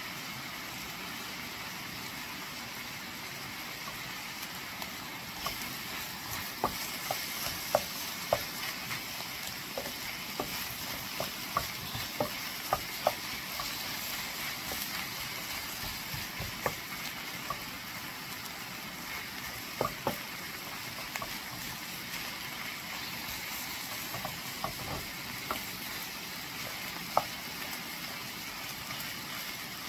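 Ground turkey sausage with diced peppers, onions and celery sizzling in oil in a skillet: a steady hiss. A spoon or spatula stirs the mixture, clicking and scraping against the pan in irregular knocks from about five seconds in until near the end.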